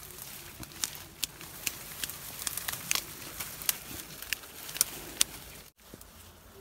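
Dry grass stems rustling, crackling and snapping as they are pushed aside and snipped with hand pruning shears: irregular sharp clicks and snips, with a short break near the end.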